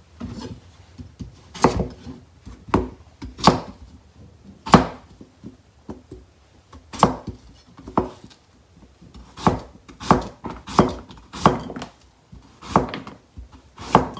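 Chef's knife slicing a peeled daikon radish into quarter rounds on a plastic cutting board. Each cut ends in a sharp knock of the blade on the board, about one a second at uneven spacing.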